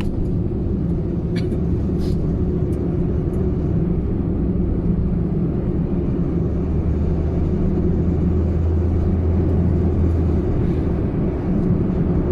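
Car engine and road noise heard from inside the cabin: a steady low hum, with a couple of faint clicks about one and a half to two seconds in.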